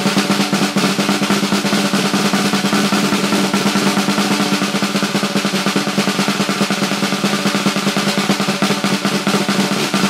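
Snare drum roll played with a pair of wooden drumsticks: a fast, continuous stream of strokes with the drum head ringing under them.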